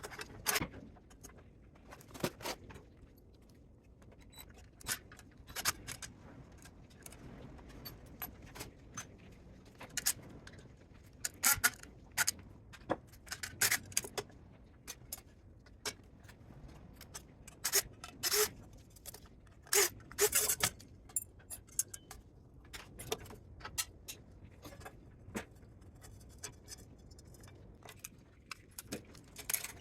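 Irregular metallic clinks, jangles and scrapes of loose metal parts being handled, with quick clusters of clicks about ten and twenty seconds in.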